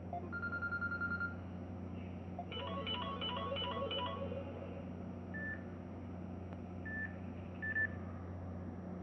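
Electronic beeps and tones from a Samsung Galaxy J1 mini phone: a fast run of short beeps lasting about a second, then a warbling run of repeated tones for about a second and a half, then three single short beeps, over a steady low hum.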